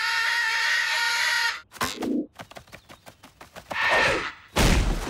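Cartoon sound effects: a loud squawking cry held for about a second and a half, then a patter of quick ticks, a shorter second squawk, and a loud crash near the end.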